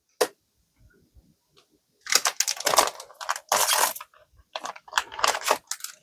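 Trading cards and booster-pack wrappers being handled: a sharp click, then several bursts of rustling and crinkling.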